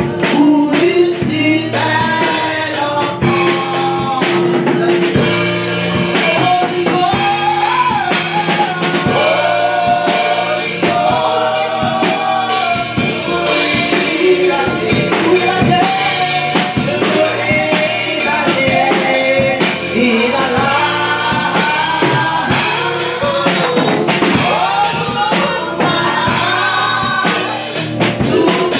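Gospel revival song: several women's voices singing together into microphones over a band with a drum kit.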